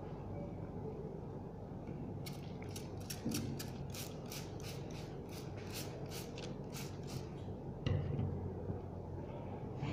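Plastic trigger spray bottle pumped rapidly, about twenty short spritzes of water at about four a second, starting about two seconds in. A single thump follows near the end.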